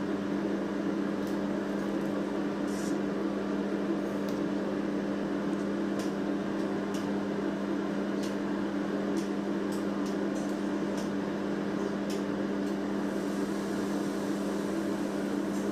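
Steady machine hum from an electric appliance running in the room, with a few faint light clicks.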